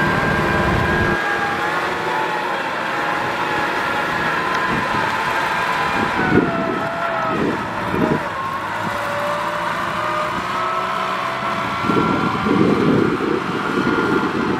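Kubota M6040 tractor's diesel engine running under load as it hauls a loaded trailer up out of a muddy field; its pitch sags about six seconds in and then climbs again. Irregular low rumbles come through around six to eight and twelve to thirteen seconds in.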